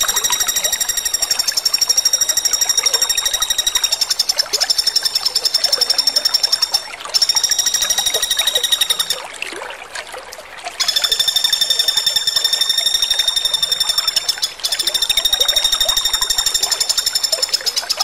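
Flameback woodpecker (pelatuk bawang) giving long, rapid, high-pitched rattling trills, repeated back to back with short breaks and a quieter gap about halfway through.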